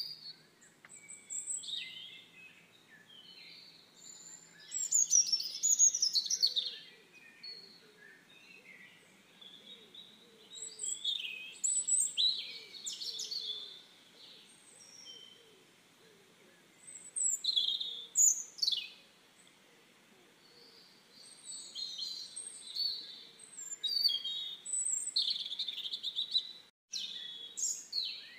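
Small birds chirping and calling, a busy mix of short high chirps and quick falling whistles that come in louder spells every few seconds. The sound cuts out for a moment near the end.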